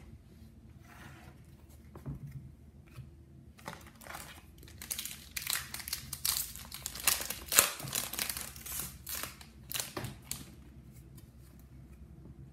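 Foil trading-card pack being torn open and crinkled by hand: a dense run of crackling and tearing for several seconds in the middle, loudest just past the middle, with lighter rustling of handling before and after.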